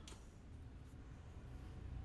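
Faint, steady whir and low rumble of a knobby go-kart wheel turning freely on its axle after being spun by hand.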